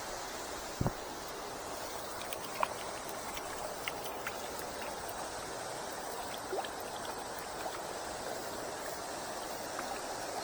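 River water flowing in a steady rush, with a brief low knock about a second in and a few faint clicks.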